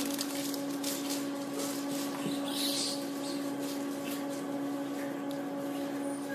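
A steady hum at one constant pitch, like a motor or machine running, over a faint background hiss.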